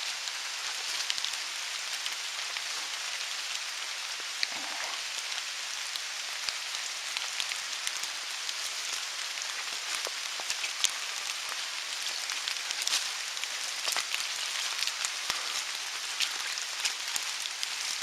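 Steady rain falling, with many sharp, scattered drop hits.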